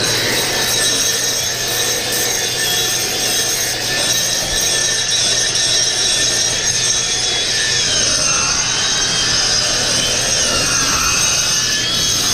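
Right angle grinder with a cup wheel grinding a concrete surface under a vacuum dust shroud: a steady grinding noise with a high motor whine that sags in pitch under load about two thirds of the way in, then recovers.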